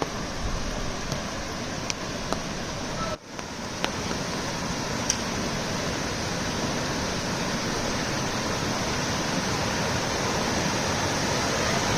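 Small river rushing steadily, with a brief break about three seconds in.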